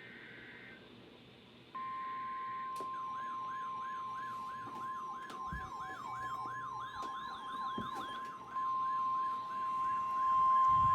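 Emergency Alert System header: a short burst of screeching data tones, then a steady single-pitch weather-radio alert tone starts about two seconds in. About a second later a fast warbling, siren-like alarm joins it and repeats three to four times a second over the steady tone.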